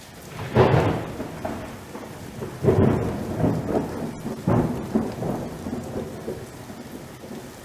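Thunder sound effect: three sudden claps of thunder about two seconds apart, each rolling off, over steady rain.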